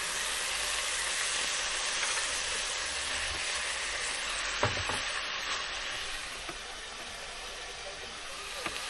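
Bacon rashers sizzling steadily as they fry in a non-stick frying pan on a portable gas stove, with one light knock about halfway through.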